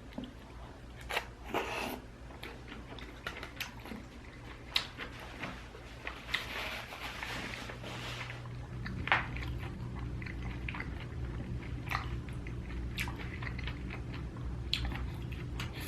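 A person chewing and eating food: scattered wet mouth clicks and smacks, with a denser noisy stretch in the middle.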